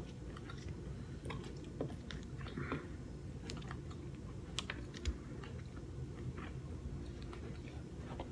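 Faint, scattered small clicks and crackles of eating king crab legs: shell pieces handled and chewing, over a low steady hum.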